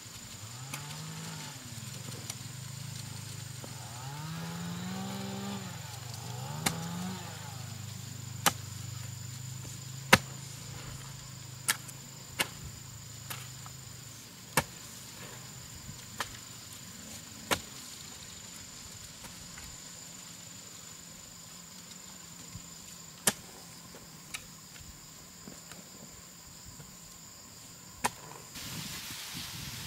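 A hoe chopping into soil in single, irregular strikes, roughly one every second or two, over a steady high insect drone. In the first seven seconds a low hum rises and falls in pitch a few times.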